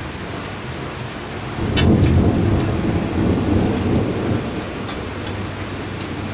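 Rolling thunder: a deep rumble swells suddenly about one and a half seconds in and slowly eases off, over a steady hiss.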